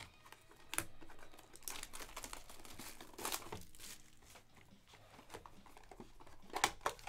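Plastic wrap on a trading-card box crinkling and rustling as the box is handled and turned over in the hands. Sharper taps come about a second in, midway, and twice near the end.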